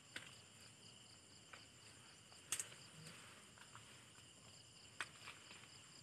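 Faint, steady high-pitched insect chorus, broken by a few brief crackles of dry corn stalks and husks being handled. The sharpest crackle comes about two and a half seconds in, and another near five seconds.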